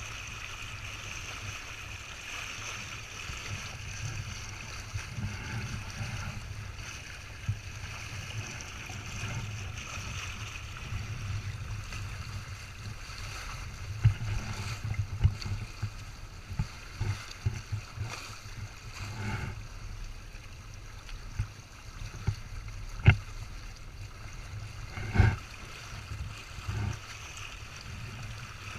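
Water rushing and splashing along the hulls of a Windrider 17 small trimaran under sail. Scattered knocks and slaps come in from about halfway through, the loudest two near the end.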